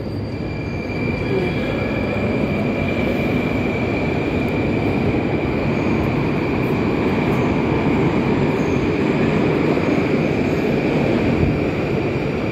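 Moscow Metro train in the station: a dense rumble with a steady high whine held through it. It builds over the first couple of seconds, then stays level.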